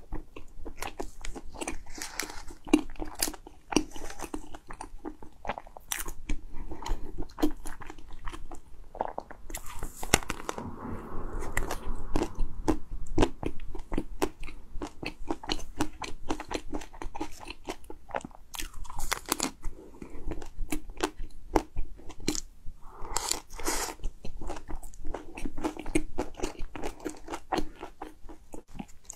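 Close-miked eating of a chocolate-coated cake: the shell crunches as it is bitten, then chewing goes on with many small, irregular mouth clicks and crackles.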